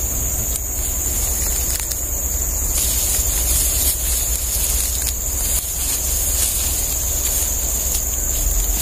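Rumbling, buffeting noise of wind on the microphone, with a steady high hiss running above it.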